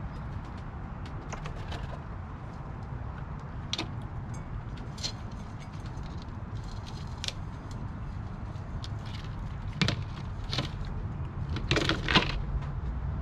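California ground squirrel feeding from plastic bowls of walnuts and sunflower seeds close to the microphone: a scatter of small clicks and scrapes from nuts and claws against the plastic, loudest about ten seconds in and again near the end, over a steady low rumble.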